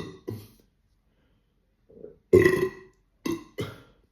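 A man burping in a series of separate belches brought up by a litre of sparkling water: two short ones at the start, a longer, loudest one about two and a half seconds in, then two quick short ones near the end.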